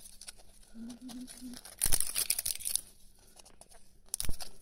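Plastic sealing strip being peeled and torn off a plastic surprise-toy capsule ball, with crinkling. Two louder tearing bursts come about two seconds in and again near the end.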